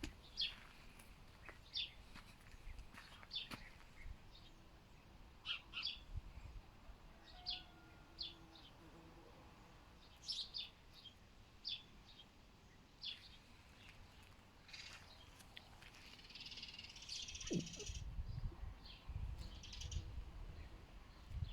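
Small birds chirping faintly, with short, scattered high chirps every second or two. Bursts of low wind rumble come near the end.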